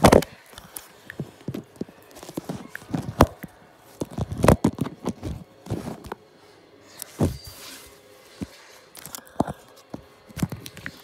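Irregular knocks, scrapes and bumps of a Jack Russell–Patterdale cross puppy pawing and mouthing at the phone right against its microphone, with several sharp, loud knocks among quieter scratching.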